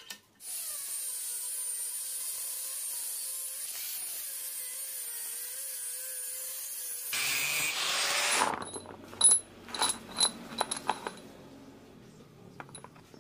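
Electric power tool working steel, a motor whine that wavers with the load over a steady hiss, for about seven seconds. It turns louder and rougher for a second or so, stops, and then come several sharp metallic clinks of steel pieces being handled.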